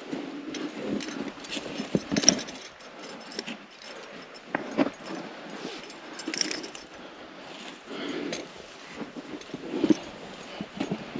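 Metal climbing gear clinking and jangling on a harness, mixed with irregular scraping and rustling of hands, climbing shoes and clothing against granite while crack climbing on a rope.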